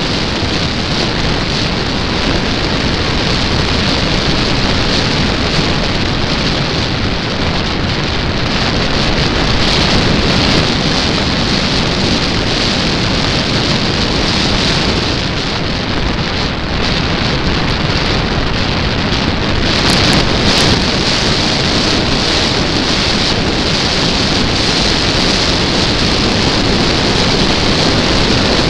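Steady rush of air over the microphone of a small camera riding on a flying model airplane, with a brief swell about two-thirds of the way through.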